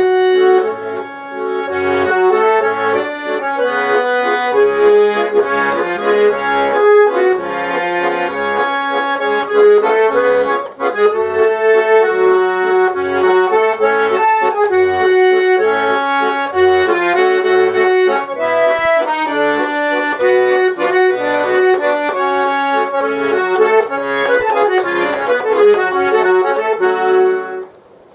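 Button accordion playing a waltz: a melody with chords over regular bass notes, with a brief break in the playing near the end.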